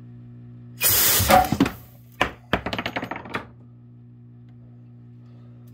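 A B.I.D. CO2 discharger fires into the nipple of an 1863 Zouave percussion rifle. About a second in there is a loud hiss of gas lasting about a second, blowing a ball stuck on wet powder out of the barrel. Several sharp knocks and clicks follow.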